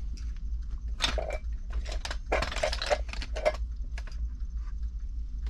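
Metal parts clicking, clattering and scraping in irregular bursts as a small motor part is worked loose by hand, over a steady low hum.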